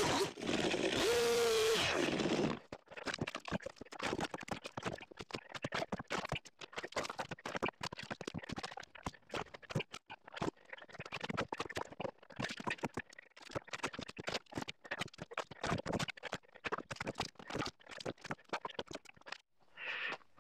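Stihl 362 two-stroke chainsaw running, then shutting off about two and a half seconds in. After that, a long run of irregular wooden clatters and knocks as cut firewood pieces are dropped into a metal trailer box.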